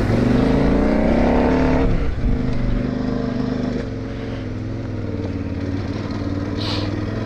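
Motorcycle engine, a KTM 990 Adventure's V-twin, accelerating with its pitch rising for about two seconds, then easing off briefly and pulling on at a steadier, lower pitch that softens a little later on.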